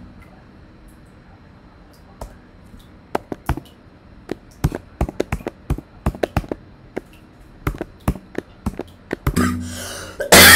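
Keys of a computer keyboard clicking in irregular runs of typing. Near the end a louder, noisy sound with a low hum comes in.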